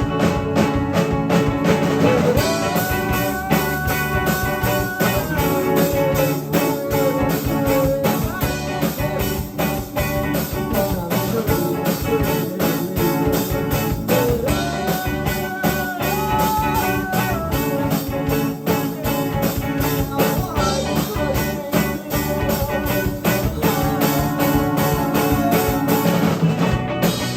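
Rock music played by a band: guitar over a steady drum beat, with a melodic line that bends up and down.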